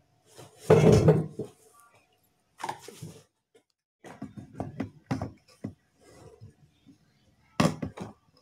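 Knocks and rustles of handling at a table: a loud thud about a second in as rice is dropped into a stone mortar, then scattered light knocks and a sharp louder knock near the end.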